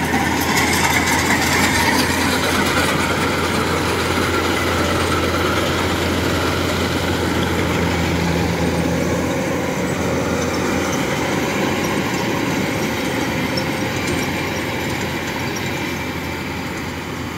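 Kubota DC-105 combine harvester running steadily as it cuts and threshes rice, a continuous engine and machinery drone that grows fainter toward the end.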